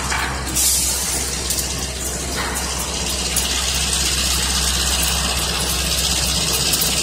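A diesel-hauled train passing close below: a steady, loud rushing noise with a low engine hum underneath.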